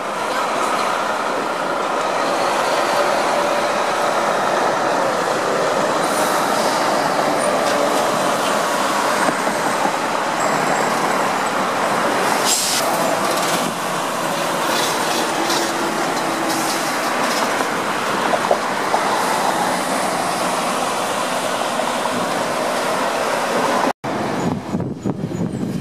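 Tractor-trailer trucks rolling past close by, a steady heavy rumble of engines and tyres. Near the end the sound cuts out for an instant.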